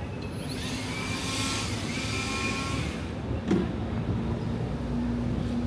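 Downtown city traffic: a steady low rumble with a vehicle swelling past and fading from about half a second to three seconds in, and a single short thud about three and a half seconds in.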